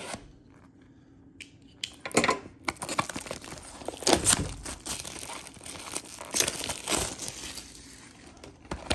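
Clear plastic shrink wrap on a trading-card box being torn and peeled off, crinkling in irregular bursts that start about two seconds in.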